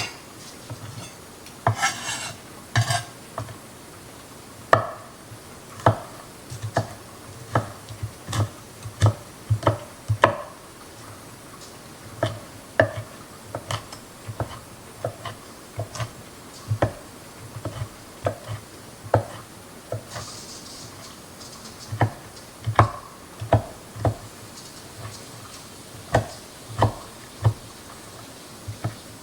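A kitchen utensil knocking and scraping against a serving dish while ingredients are spread and sprinkled: many short, irregular taps, about one or two a second, with a couple of brief rustles.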